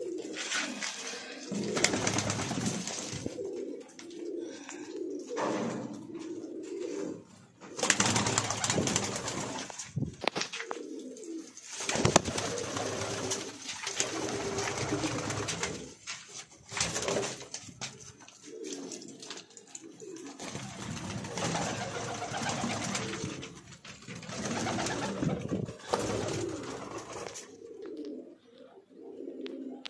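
Many domestic pigeons cooing together in a small loft, a continuous low warbling coo. Repeated bursts of rough noise come over it.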